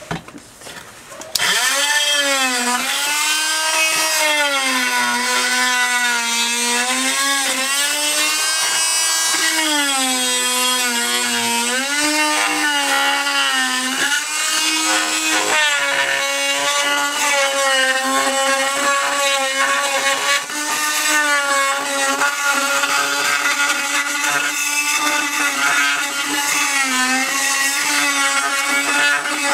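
Chicago Electric oscillating multi-tool with a carbide tile and masonry blade cutting along the edge of an old floor tile, switched on about a second in. It runs as a steady buzzing whine whose pitch dips and rises as the blade works the joint.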